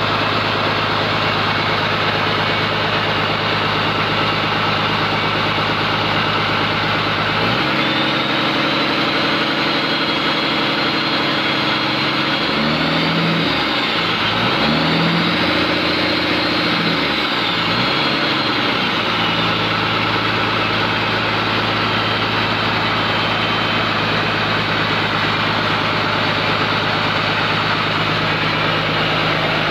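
Komatsu PC200-8M0 excavator's six-cylinder diesel engine running on a test run after overhaul: it idles steadily, then its speed steps up about seven seconds in, rises and falls twice, and drops back to a steady idle about two-thirds of the way through.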